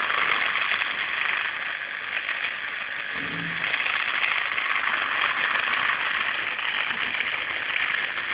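Small homemade two-pole single-phase induction motor running steadily on 12 V AC, its squirrel-cage rotor from a cooler water pump spinning fast on the main winding alone, with a steady noisy whir. A short low pitched sound comes in about three seconds in.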